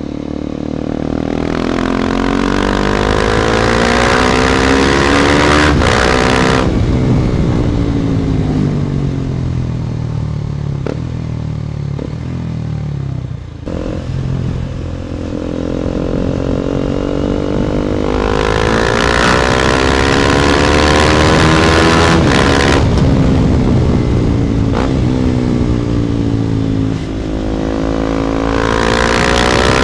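KTM Duke 250's single-cylinder engine through an Akrapovic exhaust, heard while riding with wind rushing over the microphone. It revs up over the first several seconds, then falls away as the bike slows until a little before halfway. It climbs again to a high pitch, drops back, and starts rising once more near the end.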